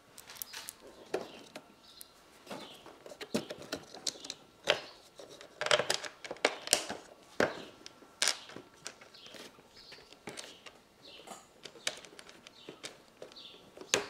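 Irregular light clicks and taps of small screws, washers and plastic parts being handled and fitted by hand into a plastic car bumper.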